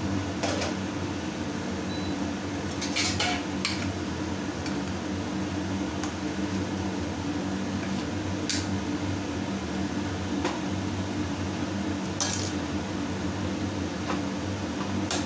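Metal ladle stirring curry in an open pressure cooker, scraping and clinking against the pot with about nine sharp metal clinks spread through, over a steady low hum.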